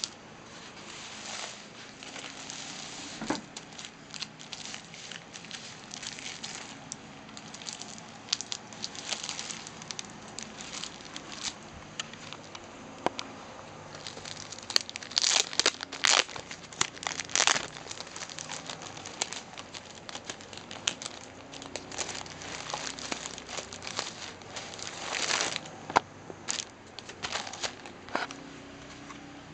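Bubble wrap and plastic wrapping crinkling and rustling under hands. There are louder spells of crackling about halfway through and again near the end.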